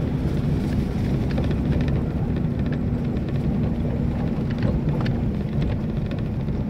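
Vehicle engine running under steady load with a low rumble while driving over a rough dirt track, heard from inside the cab, with irregular rattles and knocks from the bumps.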